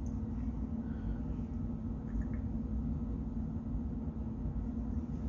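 Steady low hum with no distinct events: room tone.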